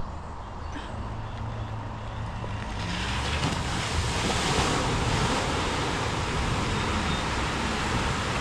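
A 4x4's engine drones low as the vehicle drives through deep mud. About three seconds in, a steady rushing hiss joins and stays.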